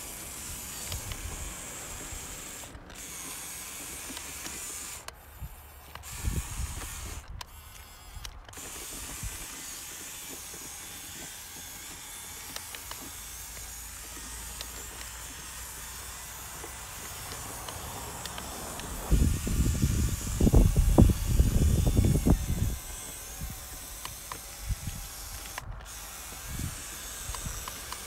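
Radio-controlled scale off-road truck's electric motor and gearbox whirring steadily as it crawls through mud towing a trailer. About two-thirds of the way through, a loud low rumbling noise lasts for a few seconds.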